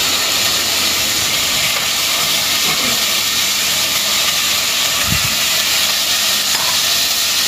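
Pork spare ribs searing in hot sesame and corn oil in a stainless steel pot: a steady sizzling hiss. About five seconds in there is a soft bump as the ribs are turned with tongs.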